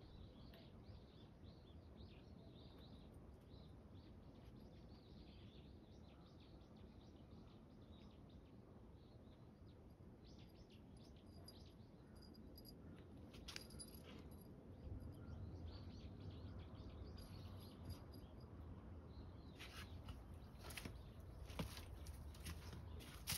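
Near silence: quiet outdoor ambience with faint, scattered bird chirps. Toward the end come a few sharp clicks and rustles.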